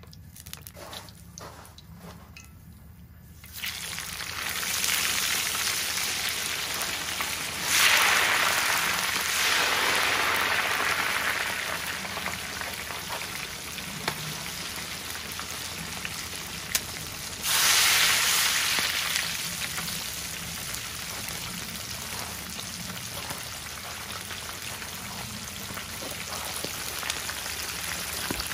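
Battered half chicken going into hot oil in a pot about three seconds in. The oil starts sizzling and bubbling hard, with two louder surges of sizzle, then settles into a steady deep-fry sizzle.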